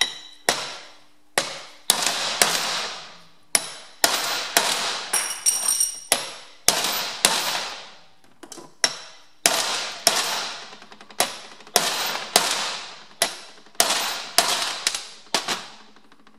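Steel hammer striking a steel bearing cup to drive a tapered roller bearing into a Ferguson TE20 tractor's rear axle housing: about two dozen ringing metal-on-metal blows, one every half second or so, that stop shortly before the end. The bearing is being bumped in by hand instead of pressed and is on its way home.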